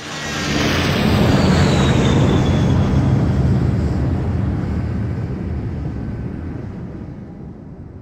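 CR-90 Corvette (blockade runner) flyby sound effect. A deep engine rumble swells in within the first second, a high whine falls in pitch over the next couple of seconds, and the rumble then slowly fades away as the ship passes.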